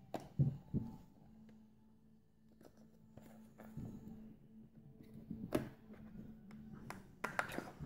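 Quiet handling sounds as the blue rubber holster is worked off an EEVblog BM235 handheld multimeter: soft rubbing, with a few light clicks and knocks, the clearest about halfway through and near the end.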